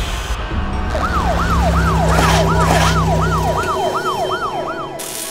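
A siren sounding in a fast yelp, starting about a second in: about ten quick falling sweeps, over a low steady vehicle rumble that stops a little after the middle.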